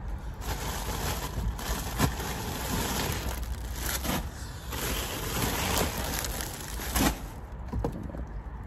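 Plastic poly-mailer packages tossed one after another into a mail bin, crinkling and landing with soft thuds. The loudest drops come about two seconds in and again near the end.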